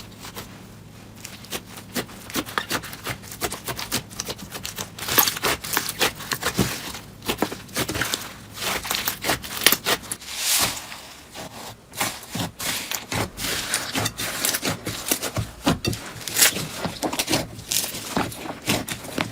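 Slime being squeezed and pressed by hands, giving dense, irregular crackling and popping clicks.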